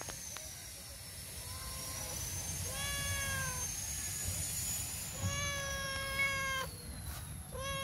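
Stray tabby tom cat meowing for food: four meows, a faint one, a short one, a longer drawn-out one, and another starting near the end.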